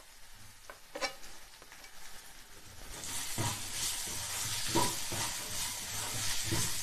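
Chopped onions going into hot oil in a nonstick pan, with a few light knocks as they drop. From about three seconds in, a spatula stirs them and they sizzle, with repeated scraping strokes on the pan.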